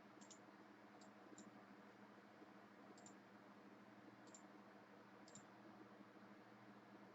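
Faint computer mouse clicks, about six scattered sharp clicks with some coming in quick pairs, over a quiet steady hum.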